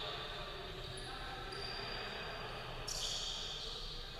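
Basketball game heard across an echoing gym: a ball bouncing on the hardwood court and distant players' voices.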